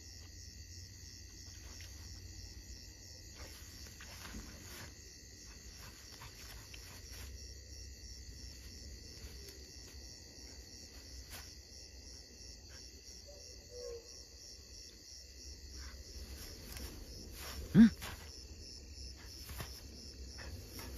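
Night insects, crickets among them, chirping steadily in a high pulsing drone, with faint ticks and rustles through the grass. About 18 seconds in there is one short, loud, low-pitched call.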